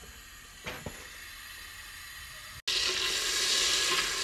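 Butter melting in a metal pot on a gas burner: faint at first with one light knock, then, after an abrupt cut about two and a half seconds in, a steady sizzle.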